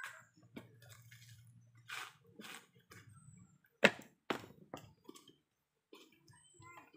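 A few separate sharp knocks and clatters of hard coconut shells being handled and dropped, the loudest just under four seconds in with a few smaller ones close after it. A faint low hum lies under the first few seconds.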